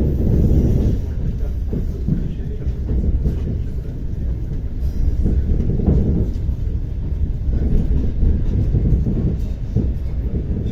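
ER9T electric multiple unit under way, heard from inside the carriage: a steady low rumble of the wheels and running gear, with occasional knocks from the track.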